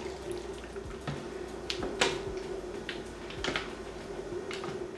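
Buttermilk poured over raw chicken drumsticks in a plastic tub, then the drumsticks turned in it with tongs: wet sloshing and dripping with a scatter of sharp clicks and taps from the tongs and chicken against the plastic. A steady faint hum runs underneath.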